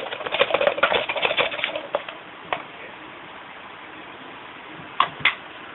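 Small stones dropped into a plastic water bottle, a dense clattering rattle for about a second and a half, then a few single clicks.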